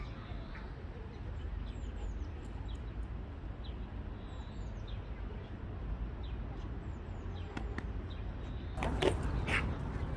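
Small birds chirping, with short high calls that drop in pitch every second or two, over a steady low rumble. A few sharp clicks near the end.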